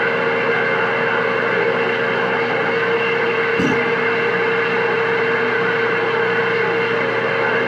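CB radio receiver hissing loudly with a steady whistle tone over it: an open, unmodulated carrier on the channel with no voice, with a brief click about three and a half seconds in.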